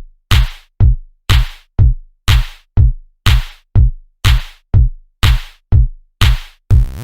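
Electronic background music: a sparse drum-machine beat of about two hits a second, a low kick alternating with a sharp snare-like hit.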